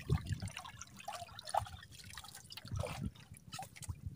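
Water dripping and trickling in small, irregular drops.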